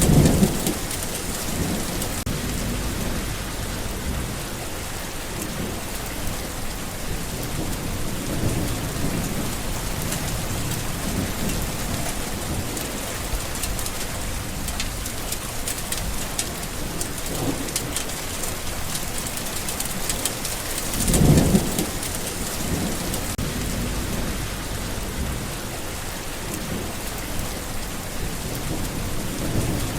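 Steady rain, with low rolls of thunder rising and fading. The loudest rumbles come right at the start and about two-thirds of the way through.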